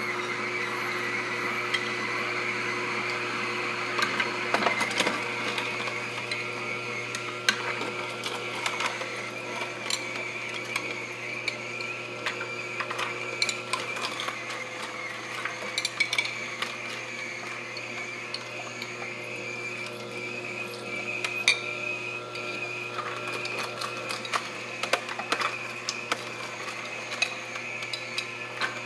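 Hurom slow masticating juicer running with a steady motor hum and whine, its auger grinding soaked almonds and water into almond milk, with irregular sharp clicks and cracks as the nuts are crushed.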